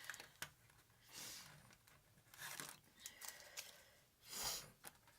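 Tool packaging being opened and handled: faint rustling and crinkling in three soft swells, with a few small clicks between them.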